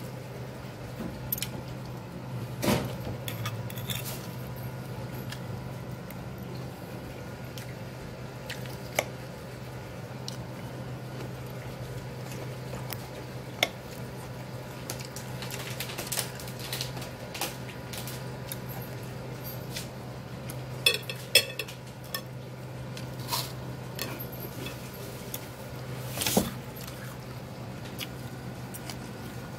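Metal fork clinking and scraping against a ceramic dinner plate while picking up salad, in scattered separate taps, with a few louder clinks. A steady low hum runs underneath.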